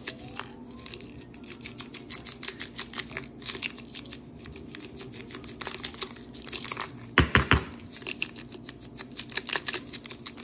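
Handheld pepper grinder grinding black pepper, a dense run of rapid crunching clicks. About seven seconds in, a few loud knocks cut in.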